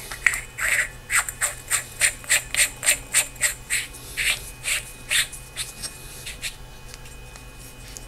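Flashlight head being screwed back onto its battery tube by hand: a run of short scraping strokes on the greased threads and knurled body, about three a second, that stops near the end.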